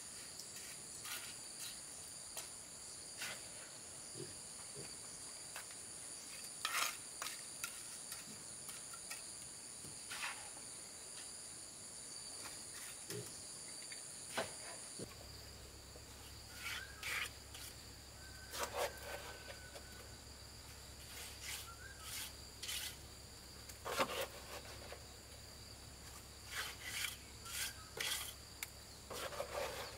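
Insects chirring in several steady high tones, with scattered short scrapes and taps of a trowel and stones as a stone wall is laid in cement mortar. About halfway a low hum comes in and the highest insect tone drops out.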